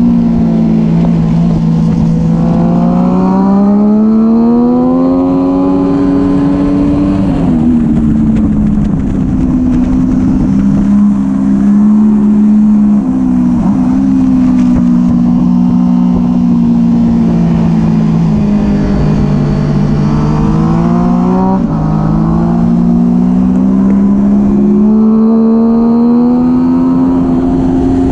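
A 600-class supersport motorcycle engine at racing speed, heard onboard, its pitch climbing under throttle and dropping sharply at a few gear changes, falling slowly off the throttle into a corner and climbing again near the end. Wind rushes over the microphone throughout.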